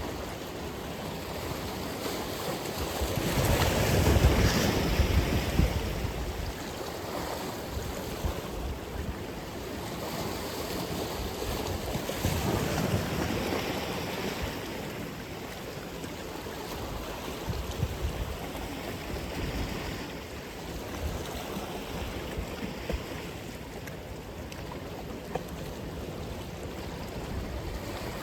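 Atlantic Ocean waves breaking and washing ashore as steady surf, with the biggest wave crashing about four seconds in and another swelling up around twelve seconds in.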